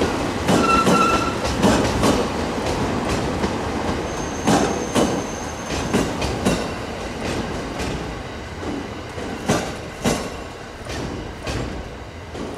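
E217-series train cars being hauled past by a locomotive: the wheels clatter over rail joints, with a brief high squeal about a second in and another about four to six seconds in. The sound grows gradually quieter as the end of the train draws near.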